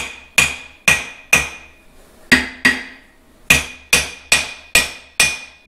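Hammer tapping a part into place in a Farmall MD tractor's differential housing: about a dozen sharp metallic taps, each with a brief ring, in three quick runs of about two a second with short pauses between.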